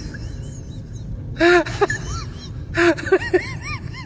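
A person's voice giving short rising-and-falling cries and exclamations without words, in two bursts about a second and a half and three seconds in.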